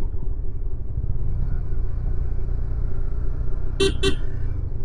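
Motorcycle riding along with a steady low engine and wind rumble, broken near the end by a horn giving two quick toots.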